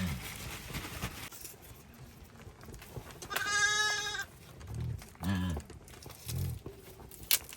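A farm animal bleats once, a long wavering call about three and a half seconds in. A few short, low grunts follow.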